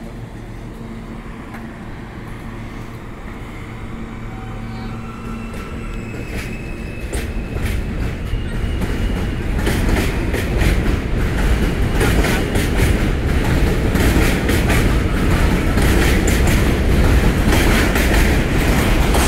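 R160A subway train pulling out of the station: a steady motor hum, then a few short rising whine tones from the propulsion as it starts to move, then wheel clatter over the rail joints, getting louder from about halfway through as the train picks up speed past the platform.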